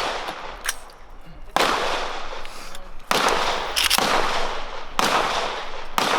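Handgun shots fired at a steady pace, roughly one a second, each loud crack followed by a long echoing tail.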